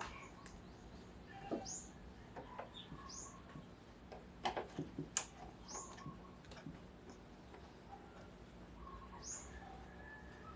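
Faint bird chirps, about four short high calls a couple of seconds apart. A little under halfway through comes a short run of light clicks from a screwdriver working a screw in the CRT television's plastic back.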